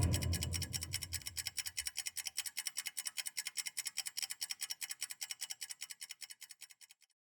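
Rapid, even scratchy ticking, about eight pulses a second, like a static-laden rasp, used as a sound-design texture; a deep boom decays underneath during the first two seconds, and the ticking fades out and stops near the end.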